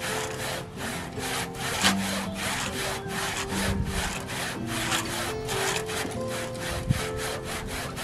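Hand-sawing through dead wood in a tree branch: quick, even back-and-forth saw strokes, about four a second.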